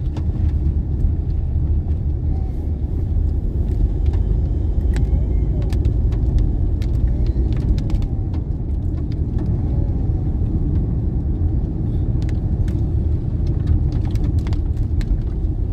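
Car driving along: steady low rumble of road and engine noise, with scattered small clicks and rattles.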